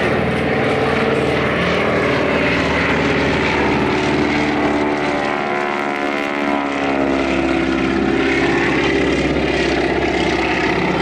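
Radial-engined Grumman Ag-Cat wingwalking biplane flying a low pass, its engine and propeller droning steadily. The pitch drops about halfway through as the plane goes past close by.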